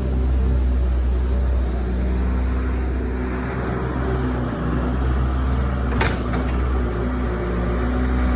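Diesel engine of a Doosan 140 excavator running steadily under working load, with a low hum. A single sharp knock about six seconds in.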